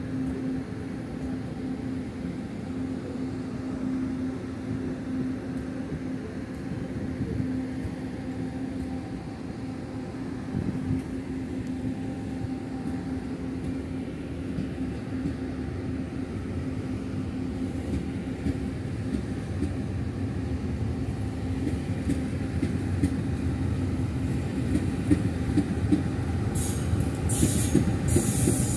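Push-pull Tze-Chiang express train rolling past as it pulls out of the station: a steady rumble of wheels and cars with a constant low hum, getting louder. High-pitched wheel squeal sets in near the end.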